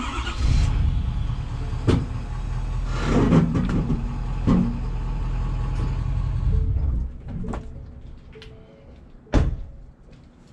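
Pickup truck engine running as the truck is eased back slightly to take pressure off the fifth-wheel hitch's locking pin, with a few knocks; the engine sound fades about seven seconds in. A loud thump near the end.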